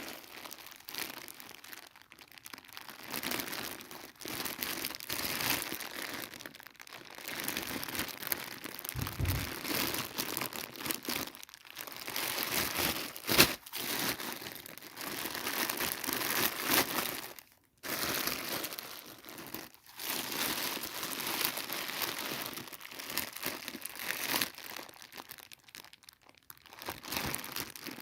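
Doll-set packaging crinkling and rustling as it is handled and opened, with a steady run of small clicks and one sharp snap about thirteen seconds in.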